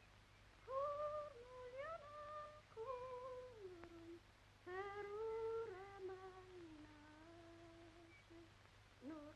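A voice humming a slow, wordless tune in short phrases, with brief pauses between them.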